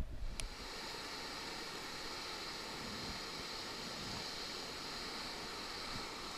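Steady rush of flowing river water, an even hiss with no rhythm, starting after a short click about half a second in.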